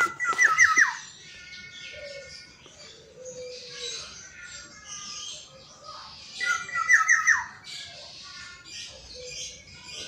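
Black-naped oriole (kepodang emas) calling: two loud phrases, one at the start and another about six and a half seconds in, each a quick run of notes sliding downward, with fainter calls in between.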